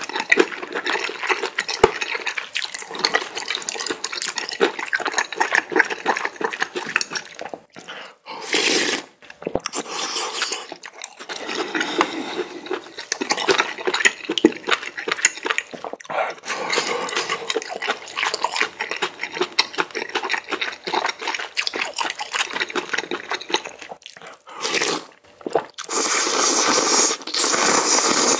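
Close-miked eating of spicy instant ramen noodles in broth: wet chewing and mouth clicks, with several loud slurps of noodles, the longest near the end.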